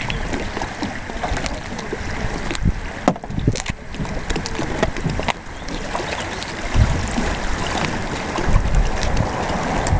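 Wind buffeting the microphone in gusts, with scattered sharp clicks and knocks as the plastic panels and clips of a folding hard-shell kayak are handled and fastened together.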